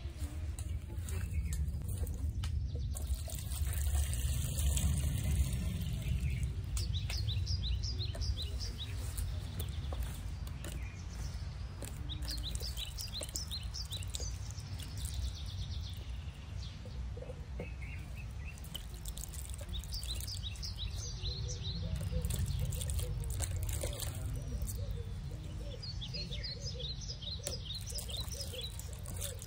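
Vegetables being washed by hand in a plastic basin of water, the water sloshing and dripping as they are rubbed and lifted out. Small birds chirp in quick runs of calls several times.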